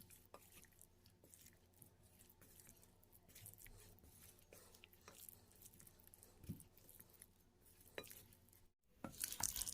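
Faint, soft wet squishing and small clicks of fish pieces being mixed by hand in a thick, floury pepper masala coating.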